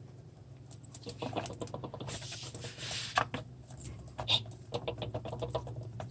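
Small clicks, scrapes and rustling as a new cartridge oil filter element is handled and pressed into its housing, with a noisier rustle about two seconds in.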